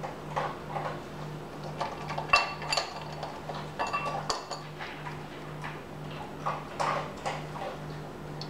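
A spatula scraping and tapping as it spreads melted chocolate over hardening caramel on a wax-paper-lined baking sheet: soft irregular scrapes and knocks, with two brief ringing clinks about two and a half and four seconds in.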